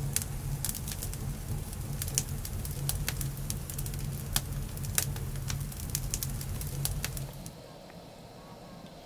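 Wood fire crackling, with frequent sharp pops and snaps over a low steady rumble of the flames. The fire sound drops away about seven seconds in, leaving a quiet background.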